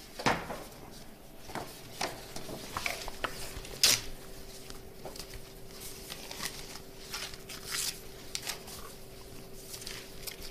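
Paper forms being handled and leafed through, in short rustles and crackles, with the sharpest snap of paper about four seconds in. A faint steady hum sets in about two seconds in.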